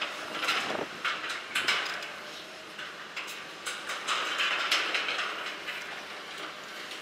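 Steel crunching and scraping in irregular bursts, with sharp clicks, as an excavator's demolition shear cuts up the steel lattice jib of a dockside crane.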